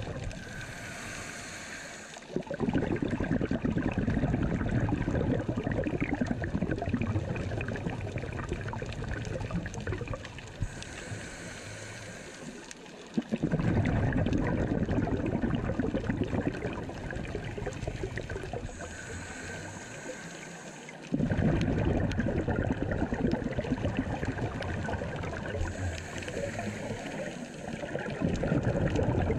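A scuba diver's own breathing through a regulator, heard underwater through the camera's housing. Each breath is a short hiss on the inhale, about two seconds long, followed by a loud rush of exhaled bubbles lasting five to seven seconds. The cycle repeats about four times.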